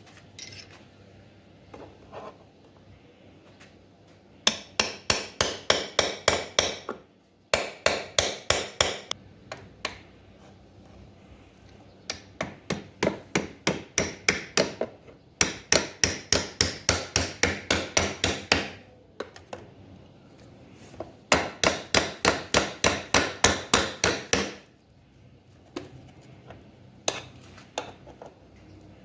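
A hammer striking a chisel in quick, even blows, about five a second, in five runs of a few seconds each, to cut open an e-bike's metal casing.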